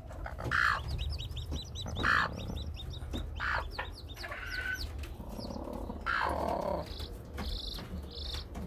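Newly hatched chicks, a Fayoumi and baladi cross, peeping under a broody hen: quick runs of short high chirps in the first few seconds, with a few louder calls between.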